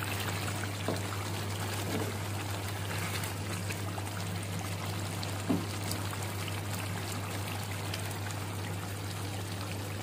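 Thick yogurt-based chicken curry bubbling and spluttering in a pan as it simmers, with oil risen to the surface in the final stage of cooking. A steady low hum runs underneath, and there are a few faint knocks.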